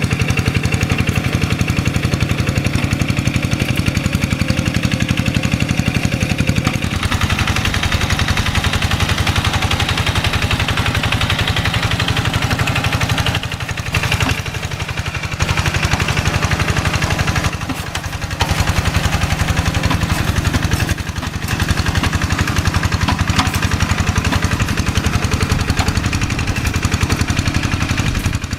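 Quick G1000 hand tractor's diesel engine running steadily with a rapid, even chugging while it plows through deep paddy-field mud. The engine drops in level briefly a few times, around the middle and later on.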